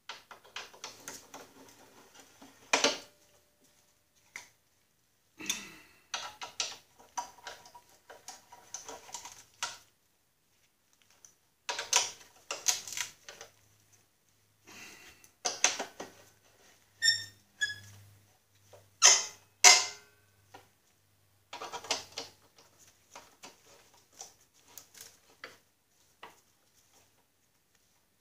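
Bolts being run in and tightened with a speed-handle socket wrench: bursts of rapid clicking lasting a second or several, separated by short pauses, with a few louder clicks about three seconds in and again near two-thirds of the way through.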